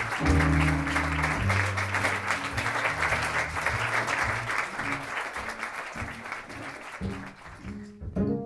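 Audience applauding, with slow, low notes of music underneath; the clapping fades away near the end.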